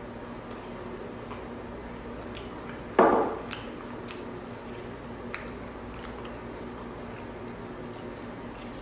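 Close-miked eating and drinking sounds: a person sipping water from a glass and chewing macarons, with soft wet mouth clicks over a steady low hum. One short, louder noisy burst about three seconds in fades within half a second.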